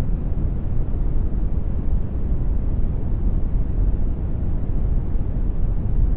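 Generated brown noise: a steady, even, deep rumble with no tones or events.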